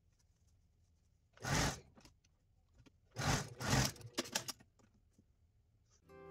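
Fabric being handled and pulled at a sewing machine: a few short rustling, rubbing bursts with some light clicks after them.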